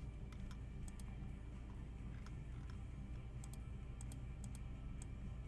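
Faint, scattered light clicks at irregular spacing over a steady low hum.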